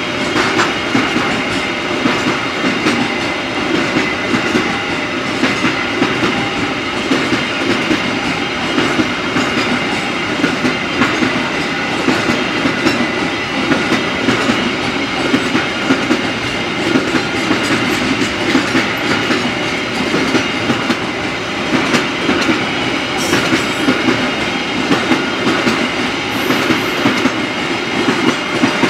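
Container freight train's loaded flat wagons rolling past close by: a steady rumble with frequent clicks of the wheels over the rail joints.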